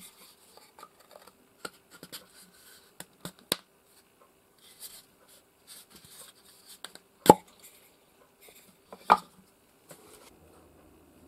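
Small wooden case parts being handled and fitted together: light clicks and rubbing of wood on wood, with two sharper wooden knocks about seven and nine seconds in.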